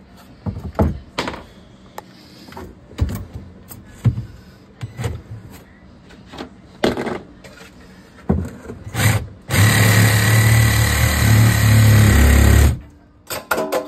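Scattered knocks and clanks, then a power tool runs steadily and loudly for about three seconds. It stops briefly and starts again at the very end.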